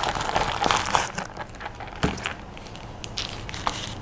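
Packaging rustling and crinkling as items are unpacked from a product box, busiest for about the first second, then a few light clicks and taps as things are handled.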